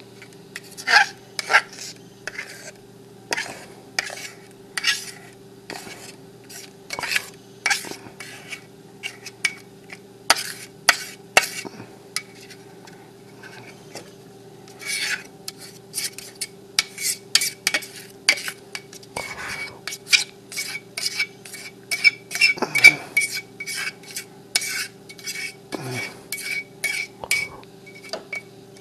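Metal fork scraping and clinking against a bowl while scraping thick banana bread batter out into a loaf pan: irregular clinks and scrapes, coming faster in the second half.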